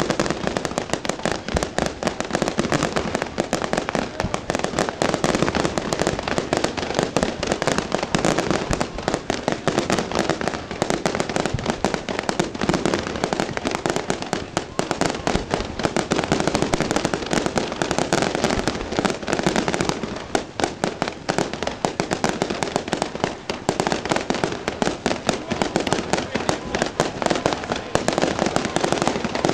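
Large fireworks display: a dense, unbroken barrage of rapid bangs and crackles from many shells and rising comets, easing slightly about twenty seconds in.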